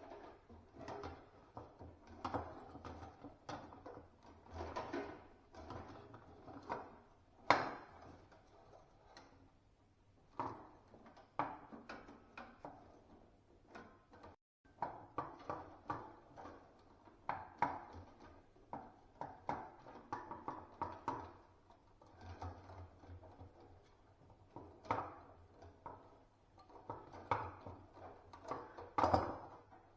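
Irregular knocks, clicks and rubbing from awning fittings being handled and worked by hand, with a sharper knock about seven seconds in and another near the end.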